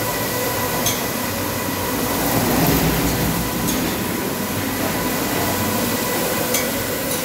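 Automatic carpet washing machine running, its row of rotating brush discs scrubbing wet, foamy carpet on the conveyor: a steady mechanical whir with a faint motor hum and a few light clicks.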